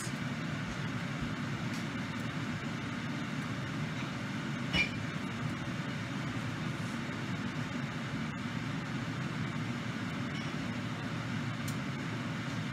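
A steady low mechanical drone runs on evenly, with a single sharp knock about five seconds in.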